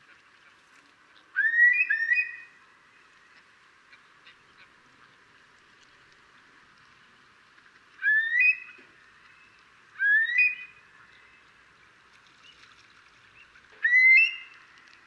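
Eurasian curlew calling: short rising whistled notes, a quick pair about a second and a half in, then single calls about 8, 10 and 14 seconds in.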